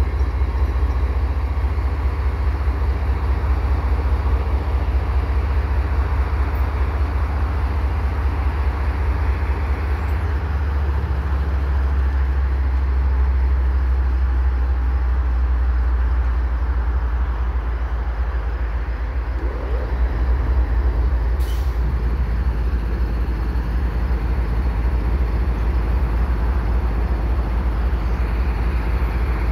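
GE ES44 diesel locomotive's twelve-cylinder GEVO engine running with a deep, steady rumble while it slowly shunts a cut of double-stack cars. The engine note changes about eleven seconds in and again a little past twenty seconds, with a brief hiss of air around the same later moment.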